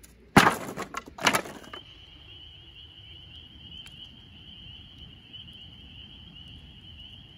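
Armful of scrap wood boards dropped onto the fire pit pile, clattering loudly twice in the first couple of seconds. After that a steady high-pitched chorus carries on.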